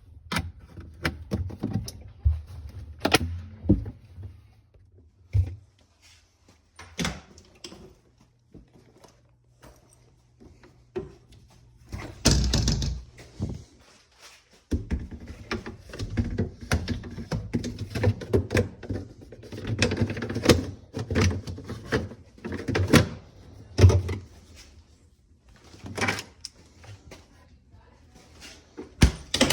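Irregular knocks, clicks and clunks of parts being handled during work on a refrigerator, over a low steady hum that drops out briefly about halfway through.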